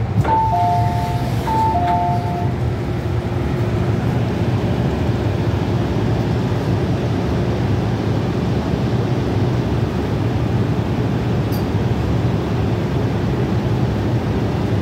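MTR M-Train electric multiple unit running in the tunnel: a steady low rumble with rail and wheel noise heard from inside the car. A two-tone electronic chime sounds twice in the first couple of seconds.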